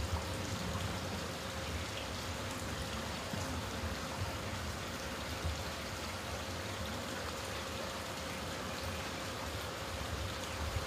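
Steady rushing noise like running water, with a faint steady hum underneath and a few soft ticks.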